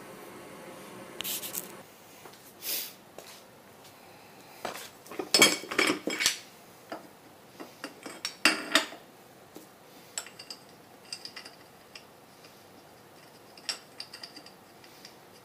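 Steel tools and parts clinking and clanking as a hub puller is handled and set against the studs of a wheel hub, in scattered light clicks and a few louder metal clanks, the loudest in a cluster about a third of the way in and again a little past halfway.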